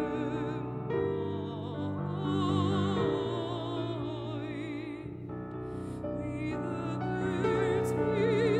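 Mezzo-soprano singing a slow, lyrical song with wide vibrato, accompanied by piano. The voice eases off about five seconds in and comes back strongly a couple of seconds later.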